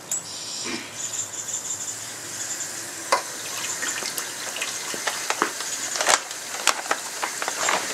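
Water from a garden hose pouring into a plastic pitcher, a steady splashing gush as the pitcher fills, with a few sharp knocks along the way.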